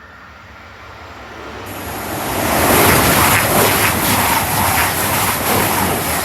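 A Class 222 Meridian diesel multiple unit passing through the station at speed, its engine and wheel noise swelling to a loud rush that peaks about three seconds in and holds.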